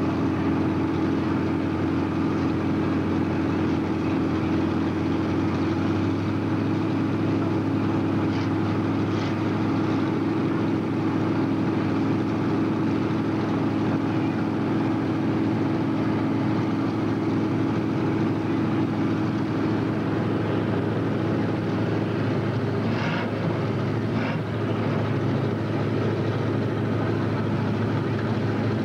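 Steady drone of a field of racing stock cars running around the track, the engines' pitch holding level with no single car standing out.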